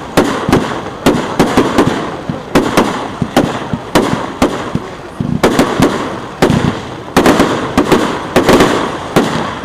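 Aerial fireworks bursting in quick succession, a dense barrage of sharp bangs, several a second, each followed by a rolling echo.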